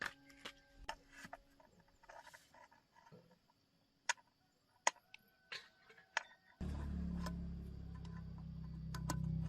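Scattered light taps and clicks, as of tools handled on metal parts. About two-thirds of the way through, a steady low hum starts abruptly and keeps going.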